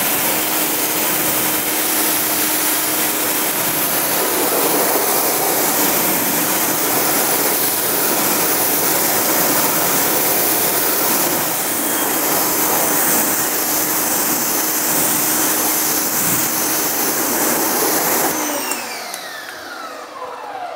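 Active 2.0 electric pressure washer running with water spraying hard from the gun, a steady loud hiss over the hum of the motor. Near the end the spray stops and the motor winds down with a falling whine.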